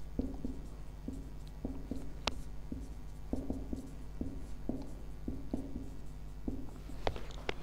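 Marker pen squeaking and scratching across a whiteboard in many short strokes as words are written, with a sharper tick about two seconds in and another near the end. A steady low hum runs underneath.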